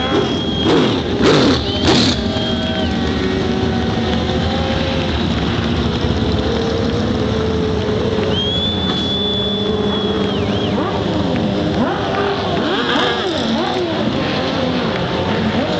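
A pack of open-wheel dirt-track race cars (sprint cars, midgets and mini sprints) running a slow pace lap, many engines sounding at once. Two cars pass close and loud about a second in, and near the end the engines rise and fall in pitch as more cars go by.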